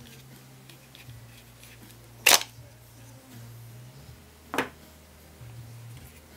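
Two sharp plastic clicks about two seconds apart, the first louder, as the plastic chip holder is snapped off an HP 940 ink cartridge and the parts are handled.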